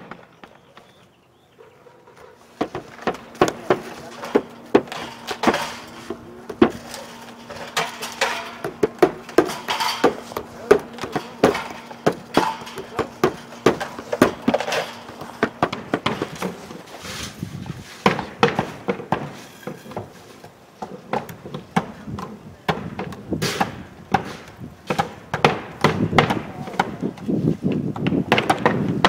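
Roofers' hammers nailing asphalt shingles by hand: rapid, irregular hammer strikes from several hammers, overlapping. A steady low hum runs under the strikes for a while after they begin.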